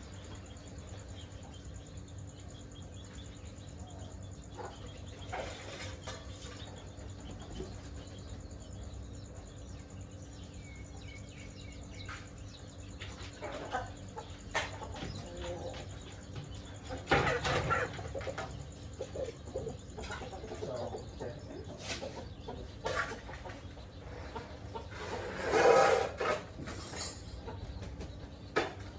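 Domestic chickens clucking at intervals over a steady low hum, with two louder calls, one a little past the middle and one near the end.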